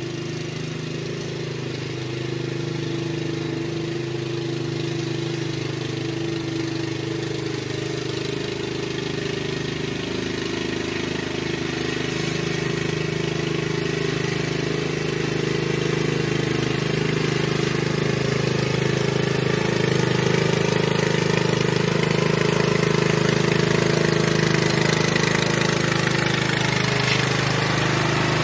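Riding lawn mower engine running steadily, growing gradually louder as the mower drives closer.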